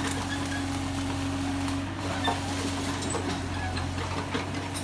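A steady, even engine hum, like a motor running at idle, with a few faint ticks over it.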